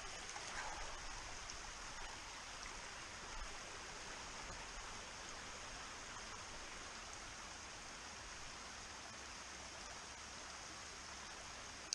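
Shallow stream running down over steep rock in a small cascade: a steady sound of flowing water.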